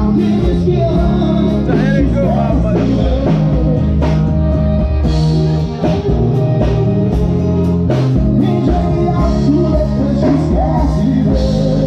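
Live band music: acoustic guitars strummed with a male voice singing through a microphone and PA, over a steady beat.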